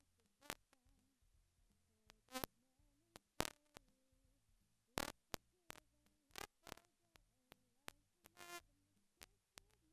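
Near silence, broken by about a dozen brief, sharp clicks and crackles at irregular intervals, with a very faint wavering tone underneath.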